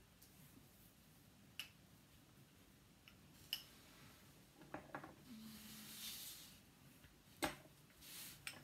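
Faint handling of painting materials on a tabletop: a few light clicks and taps, a soft swishing rustle about halfway through, a sharper tap near the end, and another brief rustle.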